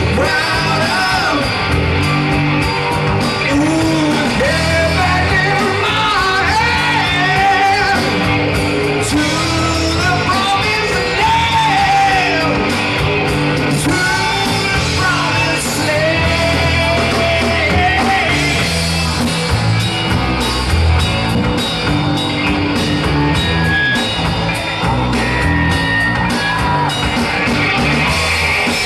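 A rock band playing live, with a singer's voice carrying the melody over electric guitars, bass and drums.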